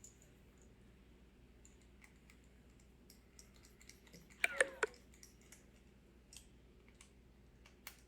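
Faint small clicks and light taps of a precision screwdriver on a Joy-Con controller's plastic shell as it is screwed shut, with a brief cluster of sharper clicks about halfway through.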